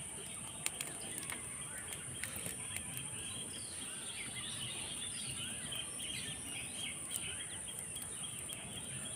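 Outdoor ambience: small birds chirping now and then over a steady high-pitched hiss, with a few faint clicks.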